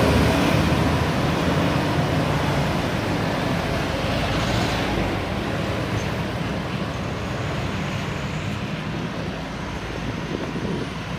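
Intercity bus passing, its engine and tyre noise slowly fading away.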